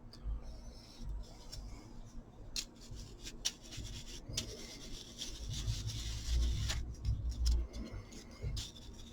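Brush bristles scrubbing dust off a small laptop cooling fan: a dry rubbing with scattered light clicks and bumps, busiest in the middle and later part.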